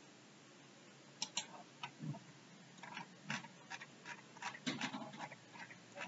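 Faint, irregular clicks and ticks of a computer mouse, its buttons clicked and its scroll wheel turned.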